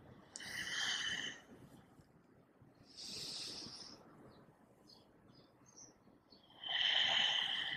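A woman's slow, deep breaths close to the microphone, paced to a slow yoga movement. There are three long breaths, each about a second, and the last is the loudest.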